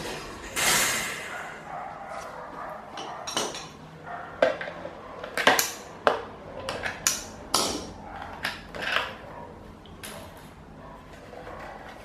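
Irregular sharp clicks and knocks of plastic and metal, with a short scrape near the start: a screwdriver working at a pedestal fan's blade hub and the plastic blade being handled and pulled off the motor shaft.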